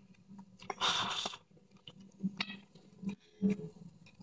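Close-up chewing and mouth sounds of a person eating rice and stir-fried snake, with a short hissing burst about a second in and a few soft clicks near the end.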